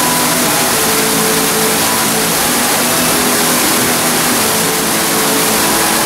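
Artificial waterfall pouring steadily into its rock basin: a constant, even rush of falling water.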